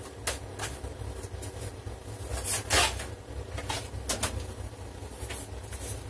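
Scattered clicks and knocks of objects being handled and moved about while searching, with one louder clatter about halfway through, over a steady low hum.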